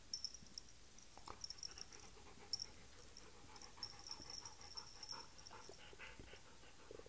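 Siberian husky panting faintly in a quick, steady rhythm from about halfway through, after a few soft knocks and rustles early on.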